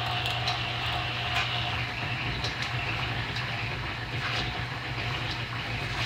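Champion camel-back drill press running on its belt-driven motor while drilling steel with a large bit of about 1.25 inches: a steady hum under a hissing cutting noise, with light ticks roughly once a second.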